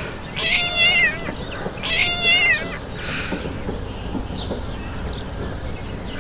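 Domestic cat meowing: two long drawn-out meows, then a fainter shorter one about three seconds in.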